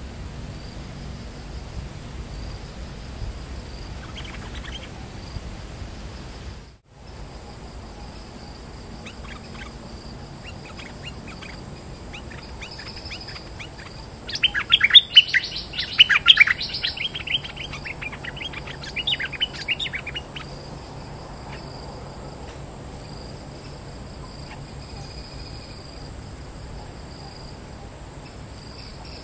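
Bulbul calling: a burst of rapid, chattering high notes about halfway through, lasting several seconds, with a few scattered notes before and after. A steady drone of insects runs underneath, and the sound drops out completely for a moment about seven seconds in.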